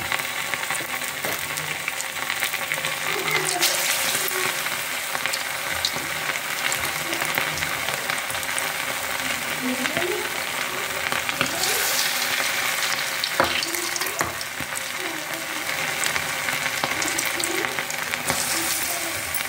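Pakora batter deep-frying in hot oil in an iron kadhai: a steady sizzle with many fine crackles.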